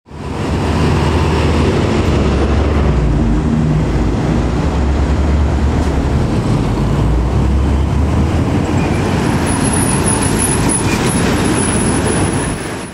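Heavy diesel trucks running past on a road, a steady low engine drone over tyre and traffic noise. The sound rises in at the start, a thin high whine joins about nine seconds in, and it all cuts off at the end.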